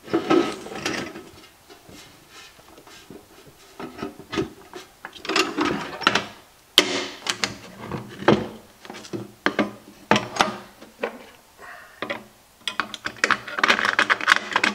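Irregular metallic clinks, knocks and scrapes as a steel U-bolt is test-fitted into a freshly cut slot in an ammo can's steel lid and the can is handled on a wooden bench. The sounds come in scattered clusters.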